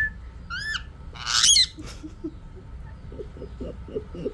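Indian ringneck parakeet squawking: a short gliding call about half a second in, then a louder, harsh screech a second later, followed by only faint low sounds. The owner takes the calls for anger.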